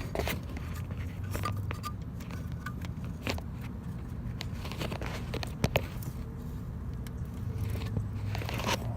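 Scattered light clicks and taps from handling in the engine bay, over a steady low hum.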